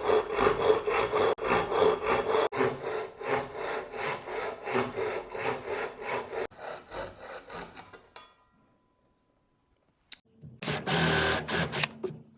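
Ryoba Japanese pull saw cutting through wood in quick, even strokes, about three a second, which stop about eight seconds in. A short, dense scratchy burst follows near the end.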